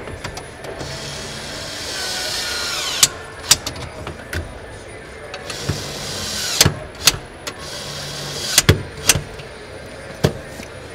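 Car assembly work at a dashboard: a small powered tool whirs twice for one to two seconds each, its pitch falling as it winds down, among sharp clicks and knocks of parts being fitted.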